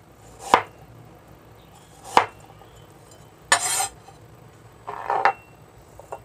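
Chinese cleaver slicing ginger on a cutting board: two sharp chops, then two longer scrapes as the slices are pushed onto the flat of the blade, and a light click near the end as they are tipped into a small glass dish.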